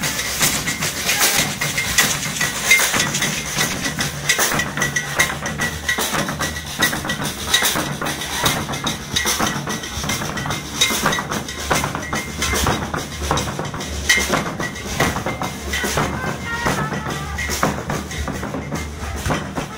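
Street drum band playing a steady rhythm on shoulder-carried bass and snare-type drums.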